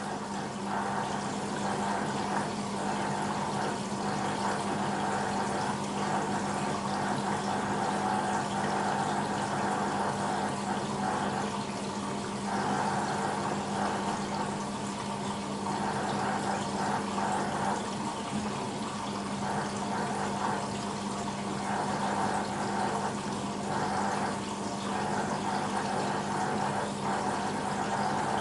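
Beko WMB 51441 front-loading washing machine with water rushing through it during its wash program, over a steady mechanical hum.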